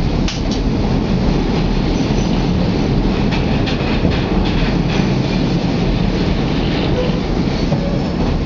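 Chicago CTA Red Line rapid-transit car running, heard from inside the car: a steady low rumble with scattered clicks of the wheels over the rails.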